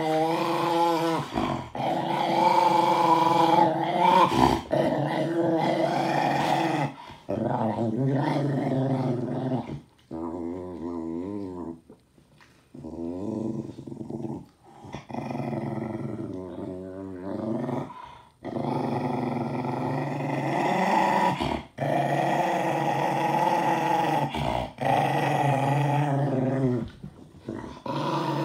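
Jack Russell terrier growling and grumbling in long, drawn-out pitched vocalisations whose pitch wavers up and down, several stretches of a few seconds each with short pauses between them.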